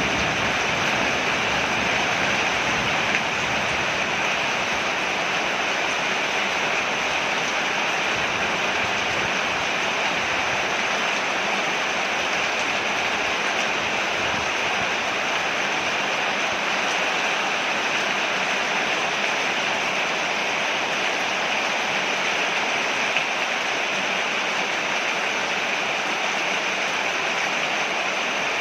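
Steady rain falling on a porch, an even unbroken hiss of water.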